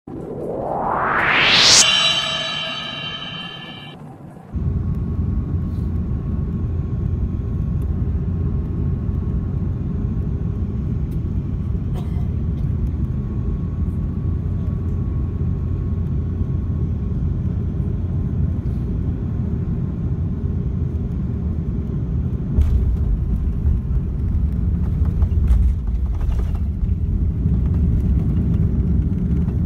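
A rising whoosh into a short ringing chime lasts about four seconds. It then cuts to the steady low rumble of an Airbus A330-300 as heard inside the cabin while it rolls along a wet runway after landing, swelling a little louder for a few seconds past the twenty-second mark.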